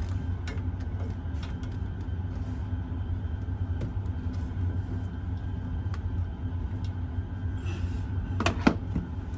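A steady low rumble with faint scattered clicks, and a short cluster of sharper clicks or taps near the end.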